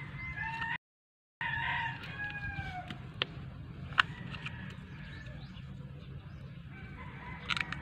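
A rooster crowing once, the call falling in pitch at its end and broken by a brief gap of silence about a second in. Later come a few sharp clicks, the loudest about four seconds in, over a steady low hum.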